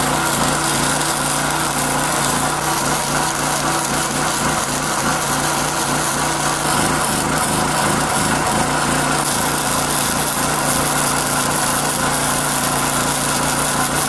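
Wire-feed welder running continuous beads on a steel square-tube frame: a steady crackling buzz with a low hum under it.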